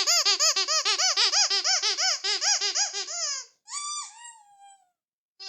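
Vintage Ledraplastic rubber squeaky toy squeezed over and over, a fast run of high squeaks at about five a second. Near the middle it slows to a couple of longer squeaks that fall in pitch, then stops briefly before the squeaking starts again at the end.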